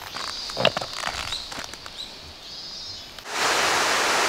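Footsteps on a twig-strewn forest dirt trail, with one sharp snap about two-thirds of a second in, while a bird calls repeatedly. Just after three seconds in, the sound cuts abruptly to the louder, steady rush of a mountain stream.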